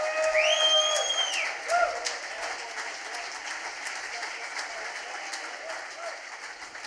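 Audience applauding and cheering, with a shrill whistle held for about a second near the start; the clapping thins and fades toward the end.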